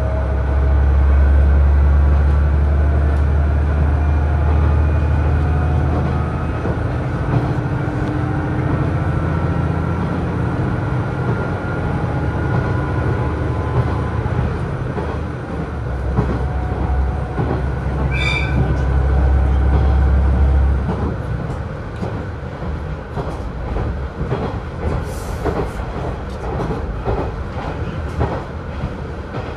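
Inside a KiHa 110 diesel railcar running along the line: a steady rail rumble with many short wheel clicks over the joints, and a deep diesel engine drone that comes and goes as the car powers. The drone drops away about two-thirds of the way through, leaving the wheels and joint clicks.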